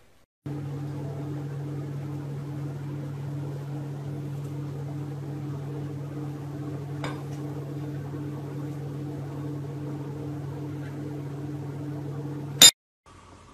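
Steady low mechanical hum, with a faint tick about halfway through and one sharp, loud click near the end, after which it cuts off.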